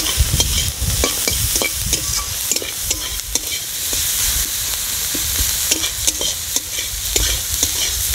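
Chopped onion, garlic, chilli and ginger sizzling in hot mustard oil while being stirred. A utensil scrapes and taps against the pan many times over the steady sizzle.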